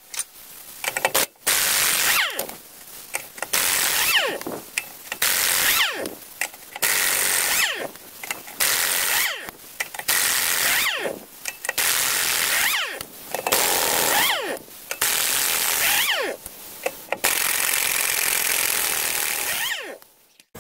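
Large air-powered impact wrench hammering off the lug nuts of a truck trailer wheel in more than a dozen short bursts, with a falling whine as it spins down after each, and one longer run of about two seconds near the end.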